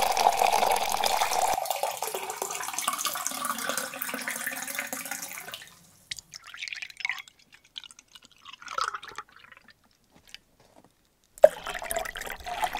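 Milk pouring steadily into a cup, fading out about halfway through. A few faint crackles follow, then a short silence, and near the end the pouring starts again suddenly.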